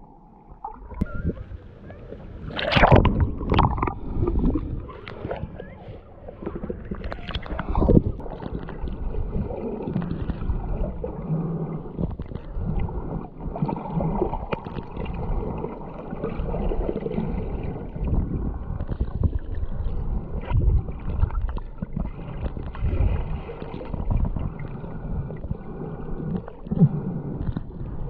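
Muffled water sloshing and gurgling heard through a camera held underwater just below the surface, with bursts of louder sloshing about three seconds in and again near eight seconds.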